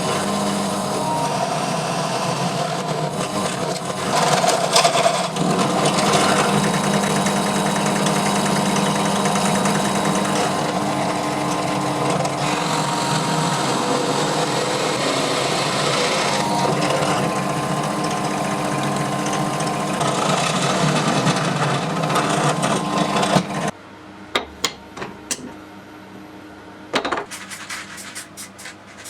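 A power tool running steadily while it works material, stopping abruptly near the end, followed by scattered sharp clicks.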